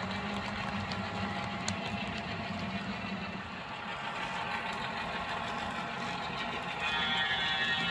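Model train locomotives running around a layout with a steady mechanical running sound. A higher pitched sound made of several tones joins about seven seconds in and is briefly the loudest part.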